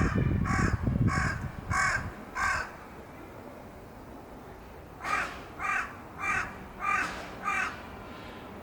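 Crow cawing in two runs of five harsh caws, about two caws a second, with a pause of a couple of seconds between the runs. A low rumble sits under the first run.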